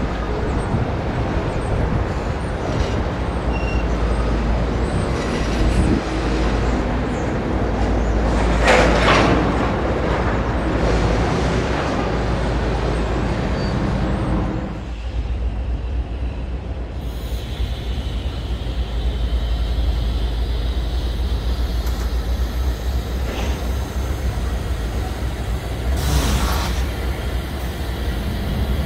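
Train passing close by, its wheels and cars giving a loud steady rumble, with a short louder hiss about nine seconds in. About halfway through the rumble drops off suddenly and goes on thinner and quieter, with another brief hiss near the end.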